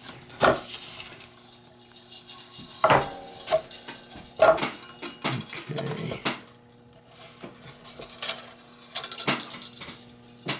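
Steel frame wire being threaded through metal eyelets in a wooden beehive frame: scattered light metallic clicks and small wooden knocks as the wire and frame are handled.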